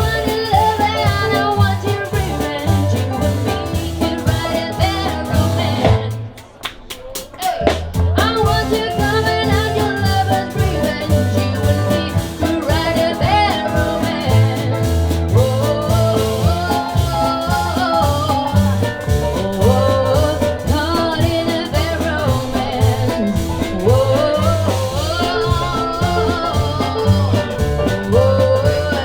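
Music: an up-tempo song with a steady bass beat and a melodic lead. It thins out briefly about six seconds in to a few sharp clicks, then comes back in full.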